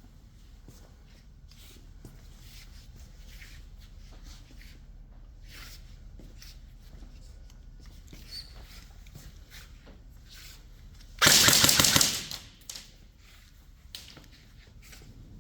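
Airsoft gun firing one rapid burst of shots, loud and lasting just under a second, about eleven seconds in. Faint scattered clicks and light knocks of handling and movement come before and after.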